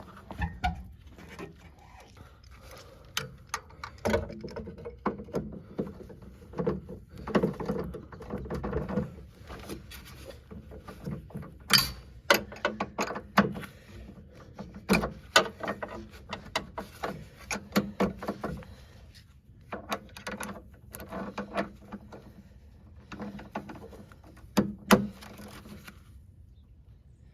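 Irregular metallic clanks, clicks and knocks of hand tools at work on a vehicle's suspension. The sharpest knocks come about halfway through and again near the end.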